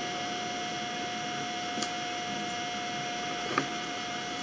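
Steady electrical hum with a constant tone and background hiss, and a faint knock about three and a half seconds in.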